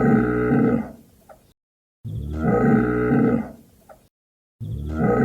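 A recorded cattle moo sound effect played three times in a row. Each is the same low moo lasting about a second and a half, with silence between.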